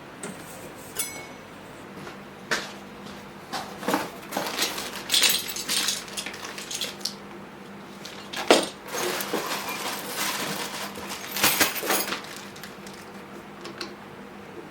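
Irregular clinks, knocks and short clatters of hard objects being handled and set down, the loudest knock about two-thirds of the way through.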